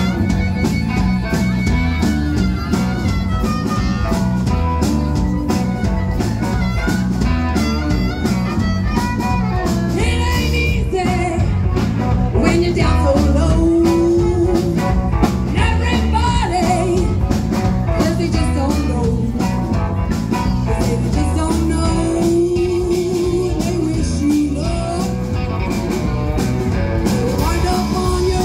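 Live blues band playing a steady rock-and-roll beat: a woman singing over electric guitar, bass guitar and drums, with a harmonica.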